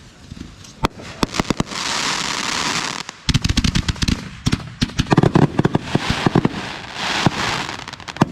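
Fireworks going off in quick succession: many sharp bangs, with rapid runs of reports in the middle, and two stretches of crackling hiss, one about two seconds in and one near the end.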